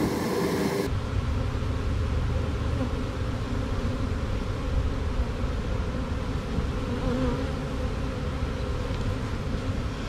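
Honey bee swarm buzzing close to the microphone. About a second in, the sound changes abruptly to a steady low rumble, with the buzzing fainter beneath it.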